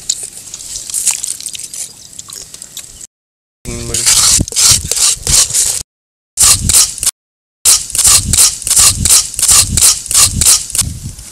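Plastic scoop scraping watermelon flesh from the rind in quick, wet strokes, about three a second, with the sound cutting out completely three times for a moment.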